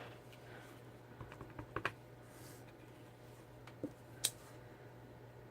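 A few light taps and clicks of a rubber stamp being inked on an ink pad and pressed onto cardstock, with one sharper click about four seconds in, over a faint steady low hum.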